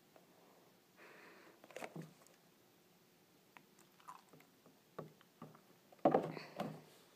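Small mouth sounds of someone drinking from a milk carton and swallowing: soft gulping noise about a second in, then scattered lip and tongue clicks. A louder rustling burst comes about six seconds in.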